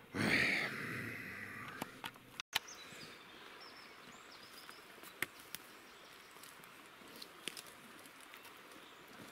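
Outdoor ambience: a loud rush of noise that fades over the first two seconds, then a faint steady hiss with scattered small clicks and a few short, faint high chirps.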